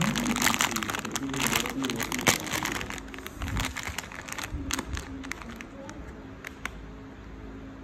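Plastic instant-noodle packet crinkling as it is handled and turned over in the hand: dense crackles in the first couple of seconds, then scattered ones.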